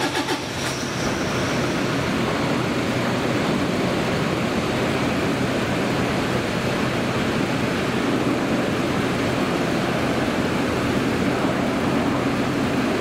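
An Airbus A320-232's IAE V2500 jet engines run with a steady, even rushing noise as the airliner rolls out on the runway after landing.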